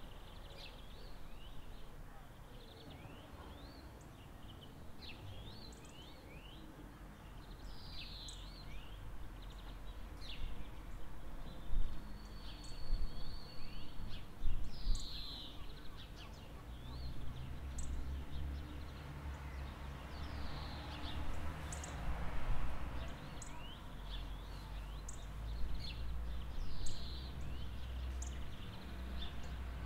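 Birds chirping and calling over and over, short quick notes and sweeping calls. A low rumble comes in about halfway.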